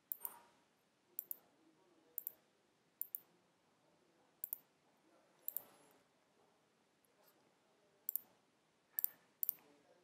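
Computer mouse button clicking, each click a quick press-and-release double tick. There are about nine of them, a second or so apart, with a pause of a couple of seconds just past the middle.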